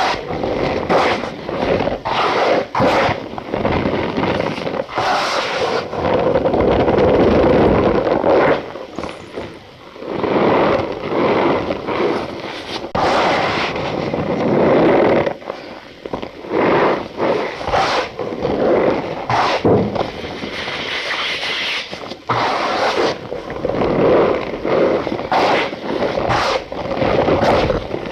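Cornstarch powder being pressed and squeezed by hand, giving squeaky crunches and scrapes in irregular strokes, some short and sharp, some drawn out for a second or two.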